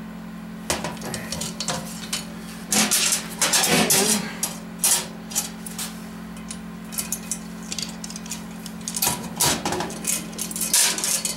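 Irregular metallic clicks, clinks and knocks as valve springs, retainers and keepers are fitted to a 5.7 Vortec cylinder head using a lever-type valve spring compressor. A steady low hum runs underneath.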